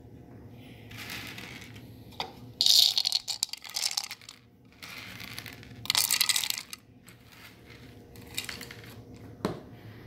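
Shelled corn kernels clattering as they are scooped and poured into a small cup, in two rattling bursts of about a second, around three seconds and around six seconds in, with a few lighter knocks between.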